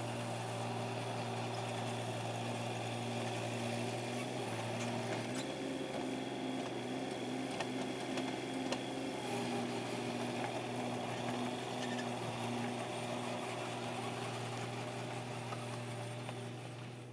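Mini excavator engine running steadily as the machine works, a constant hum with a slight wavering tone, fading away at the very end.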